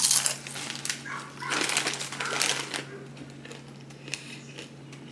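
A dog barking in short bursts, at the start and again around the middle.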